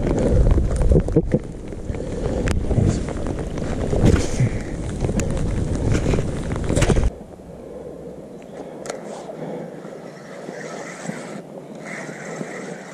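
Wind buffeting the microphone as a heavy, uneven rumble, with scattered knocks from moving about the boat, for about seven seconds; then it cuts off suddenly to a much quieter hiss with a few faint ticks.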